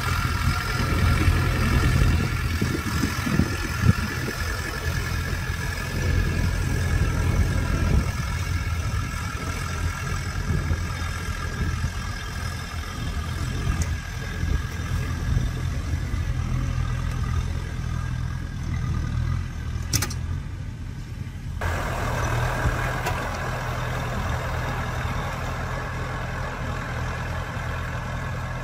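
Kubota M6040 tractor's diesel engine running steadily under load while pulling a disc plough through stony ground.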